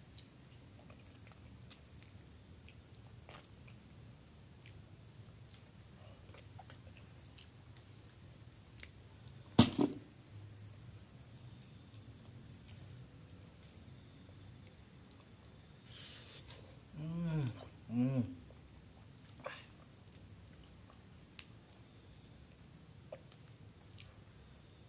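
Crickets chirping in a steady high trill. A single sharp knock comes about ten seconds in, and two short hummed voice sounds come near the end.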